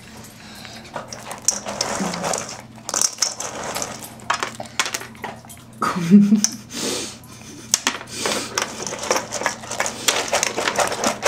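Dry dog-food kibble clattering and clicking in quick, irregular bursts as a small child grabs handfuls of it, with a couple of short vocal sounds.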